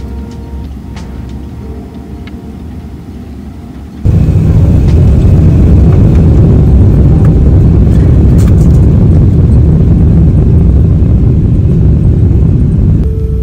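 Cabin noise of a Boeing 777-300ER's GE90 jet engines: a steady low rumble while taxiing, then about four seconds in a sudden jump to a loud, dense rumble that holds, as at takeoff thrust.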